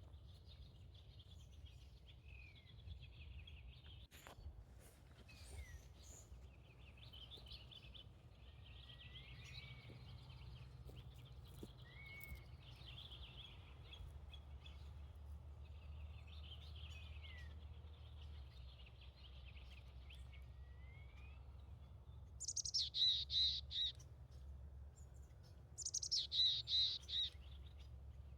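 Wild birds calling: faint chirps and short gliding whistles at first, then twice, near the end, a loud rapid series of harsh repeated notes.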